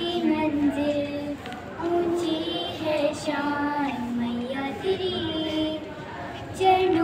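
Two young girls singing a song together, their voices carrying held notes that change pitch every second or so.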